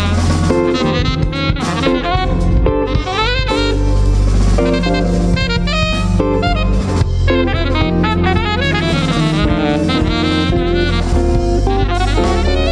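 Live jazz-fusion quartet playing: a saxophone runs fast melodic lines over electric bass, electric guitar and drum kit.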